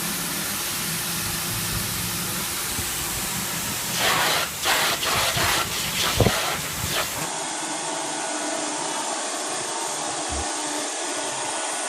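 Vacuum cleaner running with a steady hiss, with louder uneven rushes of suction in the middle. About seven seconds in it changes abruptly to a thinner, even hiss.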